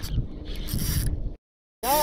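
Spinning reel working under load as a hooked fish is fought, with mechanical whirring and clicking for about a second and a half. It cuts off abruptly, and a voice begins near the end.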